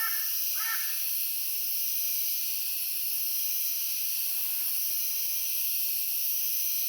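Two short, harsh bird calls about 0.7 s apart right at the start, ending a repeated series, then a steady high-pitched hiss of outdoor background.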